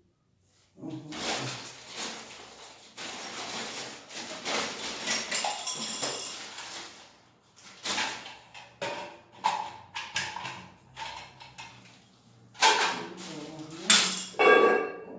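Plastic toilet-cistern parts being handled: rustling and rattling, then irregular clicks and knocks.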